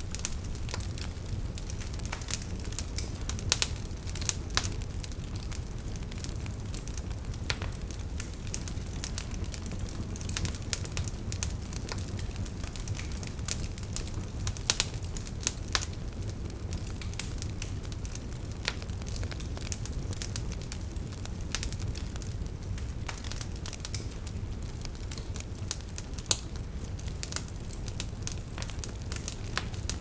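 Wood fire crackling: irregular sharp snaps and pops over a steady low rumble of the burning logs, a few snaps louder than the rest.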